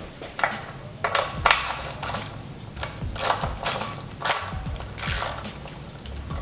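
Ratchet wrench clicking in several short bursts as a new oil drain plug is tightened, with a light metallic ring on some strokes.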